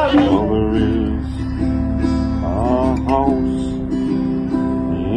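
Acoustic guitar being strummed, its chords ringing on.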